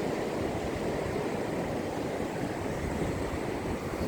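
Steady rushing of sea surf mixed with wind buffeting the microphone, heaviest in the low and middle range.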